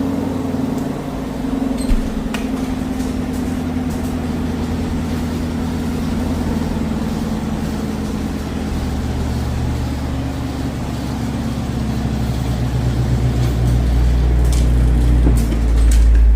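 Chevrolet C8 Corvette's V8 engine running steadily, its low rumble building and growing louder over the last few seconds.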